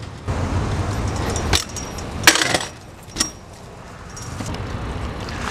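BMX bike rolling on pavement, with a sharp knock about one and a half seconds in and a louder metallic slam just after two seconds, as from the bike landing or hitting an obstacle. Another knock follows, then the rolling builds again near the end.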